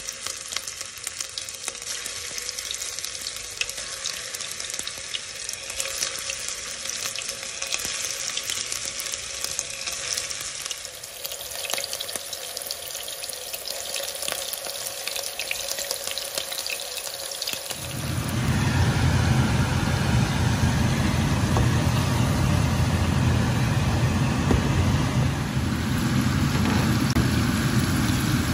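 Meatballs sizzling and crackling as they shallow-fry in hot oil in a pan, with many small pops and spits. About two-thirds of the way in, a louder, steady low rumble joins the frying and carries on to the end.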